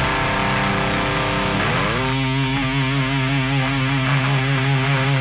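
Distorted electric guitar ringing on its own after the full band drops out: a held chord, then a slide up in pitch about a second and a half in to a sustained, wavering note.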